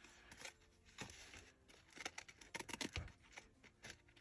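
Faint, scattered small clicks and rustles of paper being handled and trimmed at the edges of a journal page.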